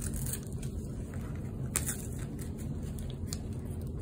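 Light rustling and a few soft clicks as a paper sticker pack and its stickers are handled, over a steady low hum.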